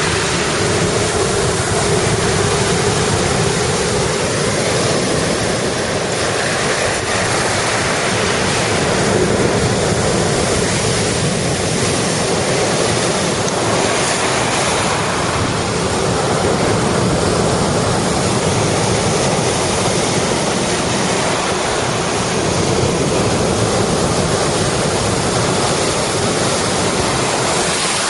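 Storm surf on Lake Superior: big waves breaking and churning white against a rocky shore, a steady, unbroken rush of water with gale-force wind on the microphone.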